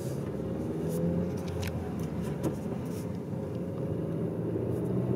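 A Skoda Superb with a TSI petrol engine drives along steadily, heard from inside the car: a low engine hum that drifts gently in pitch over tyre and road noise.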